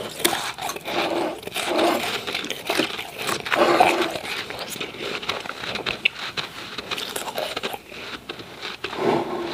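Close-up crunching and chewing of a mouthful of powdery refrozen ice, a quick run of crisp crackles with heavier crunches now and then.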